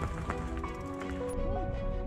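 Background music: a melody of held notes changing in pitch, with a light ticking rhythm underneath.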